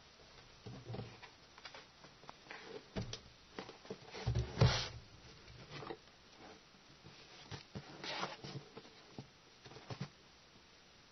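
Printed cardboard retail box of an external hard drive being handled and turned over in the hands: irregular rubbing, rustling and light knocks, loudest in a cluster about four seconds in and again about eight seconds in.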